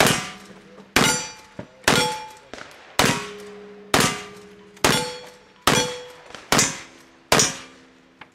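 Black-powder lever-action rifle fired nine times, about once a second. Each shot is followed by the ringing clang of a hit steel target, each at its own pitch.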